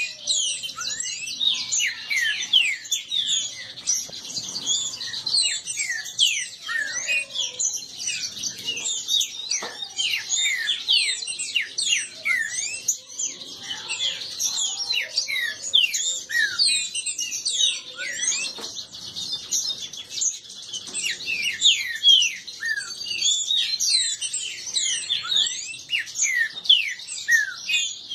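Caged green-winged saltators (trinca-ferro) singing against each other in fast competitive song, many quick sweeping notes overlapping without a break.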